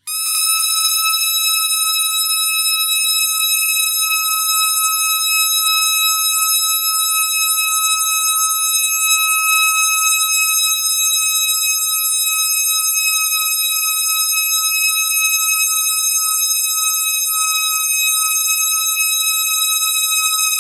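A squeaky toy's squeak stretched by editing into one endless, unbroken high-pitched tone. It starts abruptly and holds at a steady pitch.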